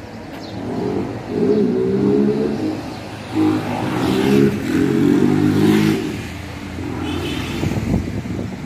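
A motor vehicle engine running nearby, revving so its pitch rises and falls, loudest between about one and six seconds in.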